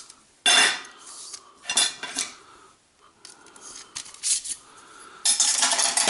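Metal clinking and clattering as pliers and lengths of extruded aluminium lighting track are handled and set down among tools on a workbench. A few short bursts come in the first few seconds, then a longer run of rattling starts about five seconds in.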